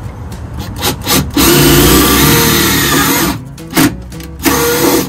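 Makita cordless impact driver with a right-angle attachment, driving a self-drilling screw into the van's steel underbody to pre-drill a hole. It goes in a couple of short bursts, then runs for about two seconds, then gives two more short bursts near the end.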